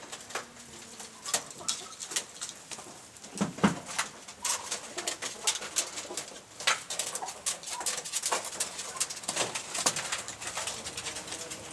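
Pigeons cooing, with many short sharp clicks and taps throughout.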